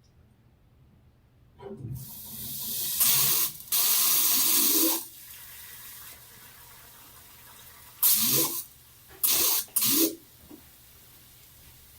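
Water spraying and sputtering from a plumbing line in irregular bursts: a hiss that builds, two loud gushes, then three short spurts a few seconds later.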